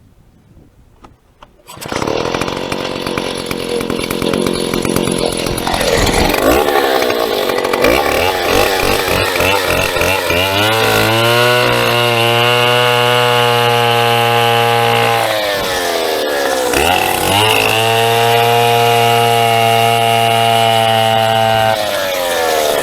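Large Stihl 070/090-type two-stroke chainsaw cutting into a birch stem. It starts up about two seconds in, and its revs climb unsteadily. It is then held at high revs, dips once about halfway, and winds down near the end.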